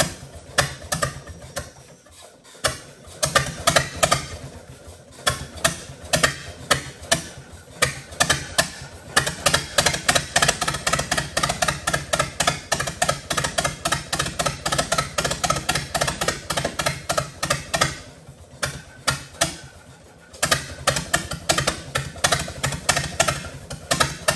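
1922 Fordson tractor's four-cylinder engine running rough, firing in a quick uneven rhythm. It falters briefly about two seconds in and again for a couple of seconds near the end, then picks back up.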